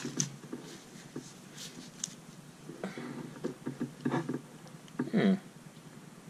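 Gloved hands handling a plastic multi-colour ballpoint pen: soft rubbing and scattered small clicks of the pen's body and mechanism. About five seconds in comes a brief, louder hum-like sound.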